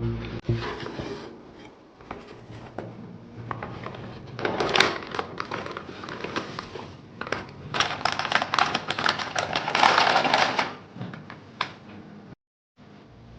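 Handling noise: crinkling and rustling with many scattered clicks, loudest in a burst about five seconds in and again from about eight to ten and a half seconds in.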